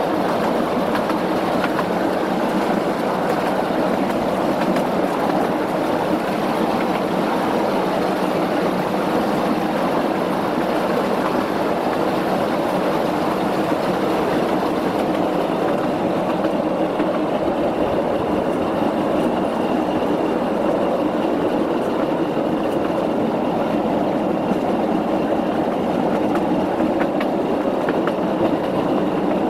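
Replica B6-type miniature locomotive running slowly along the rails, a steady rolling noise of wheels on track. A faint high steady tone joins about halfway.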